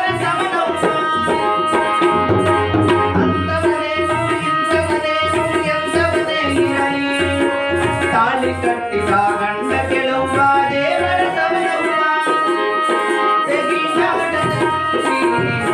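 Harmonium playing a melody with sustained reed tones, a voice singing over it, and a steady hand-drum rhythm underneath.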